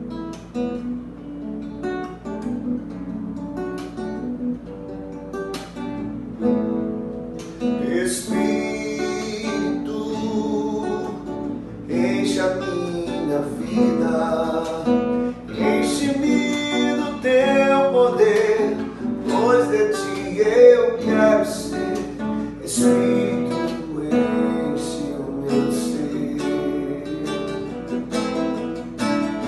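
Music: acoustic guitar picked and strummed in a song introduction, growing fuller about eight seconds in.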